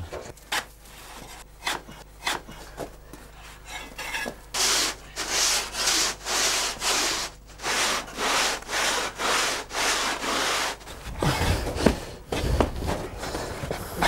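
Large two-handled saw (serrón) cutting through packed snow and ice, with rasping strokes in a steady back-and-forth rhythm of about two a second from about four seconds in, after a few scattered scrapes. Near the end come dull thuds as the iron digging forks (layas) prise at the cut snow.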